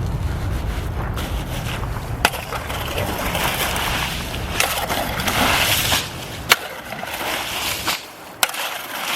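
Continuous scraping and crunching of sand and gravel being dug out of a shallow stream channel, with a few sharp knocks of tools on stone. A low rumble under it stops about two-thirds of the way through.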